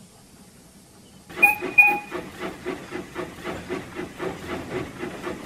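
Steam locomotive sound effect: two short whistle toots about a second and a half in, then steady chuffing at about four beats a second.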